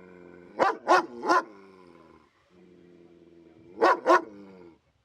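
A dog growling in a steady held tone, broken by loud sharp barks: three quick barks about a second in and two more near the end.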